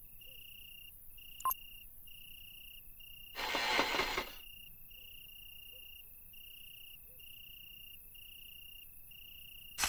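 Crickets chirping in a steady run of high trills, about one a second. A sharp click comes about a second and a half in, a one-second burst of noise about three and a half seconds in, and another short burst at the very end.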